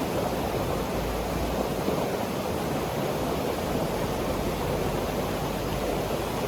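Steady rushing noise, even and unbroken, like running water or rain.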